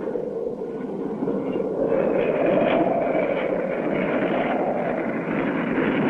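Sound effect of a light propeller plane coming in to land: a steady, noisy engine drone that grows louder about two seconds in.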